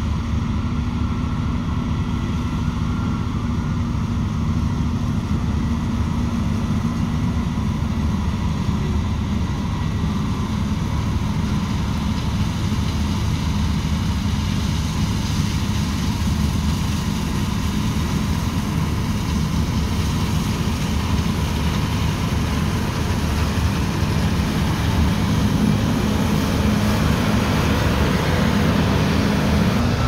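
New Holland CR combine running steadily while harvesting soybeans: a continuous low drone of engine and threshing machinery, growing a little louder in the last few seconds.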